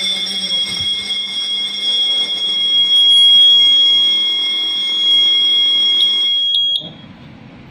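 Fire alarm sounder of a Kidde Aegis suppression release system going off in alarm: one loud, steady, high-pitched tone that cuts off suddenly near the end when a button on the release panel is pressed to silence it.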